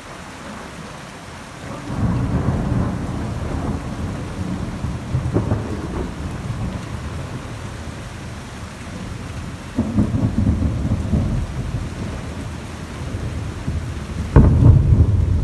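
Heavy rain falling steadily while thunder rumbles in from about two seconds in, with sharper claps near the middle and the loudest crack near the end.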